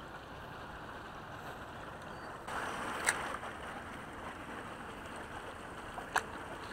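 Steady, quiet outdoor hiss with no clear single source, broken by two short sharp clicks about three seconds apart.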